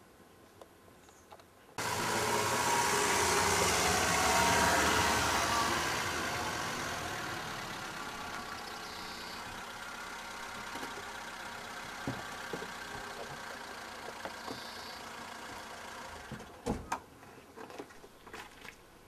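Car engine running, starting abruptly about two seconds in, loudest early on, then slowly fading. A few sharp clicks and knocks near the end.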